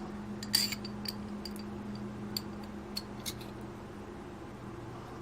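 A few light clicks and clinks of small metal parts being handled, the loudest about half a second in and the last about three and a half seconds in, over a steady low hum.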